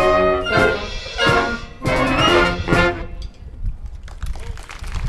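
Wind band of brass and woodwinds playing the end of a piece: a held chord gives way to about four short, accented chords with drum hits, the last about three seconds in. Scattered clapping follows.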